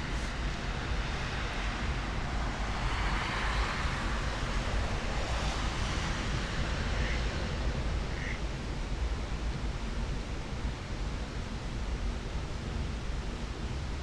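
Steady rush of flowing stream water with a low wind rumble on the microphone, swelling in hiss for a few seconds in the middle. Two short high chirps sound near the middle.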